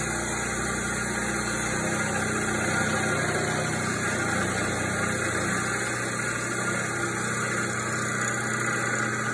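Milling machine running steadily as its cutter mills the face of a cast-iron Fairbanks Morse engine cylinder head, a continuous motor hum mixed with cutting noise; a low rumble underneath drops away about two seconds in.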